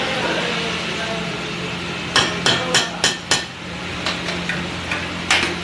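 A metal ladle striking a large pav bhaji griddle (tawa): five sharp clangs in quick succession, about three a second, then a few lighter taps and one more hard strike near the end, over a steady low hum.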